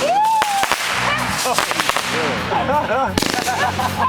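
A large consumer fireworks cake firing: rapid sharp bangs and crackling reports, with a rising whistle near the start and more whistling glides later.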